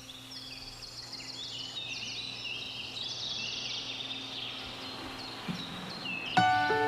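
Songbirds chirping and trilling in many quick overlapping phrases over a faint steady low hum, fading out after about five seconds; pitched, bell-like music notes begin near the end.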